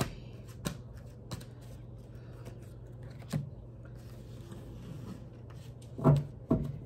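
Tarot cards being handled on a table: a few separate sharp taps and flicks of cards, with two close together near the end, over a steady low hum.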